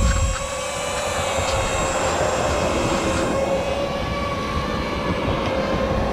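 DJI FPV drone's propellers whining steadily as it hovers and flies low nearby, over a low rumble.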